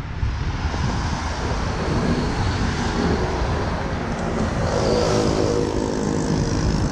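Road traffic passing close by, one vehicle's engine standing out around the middle, over wind rumbling on the bike-mounted action camera's microphone.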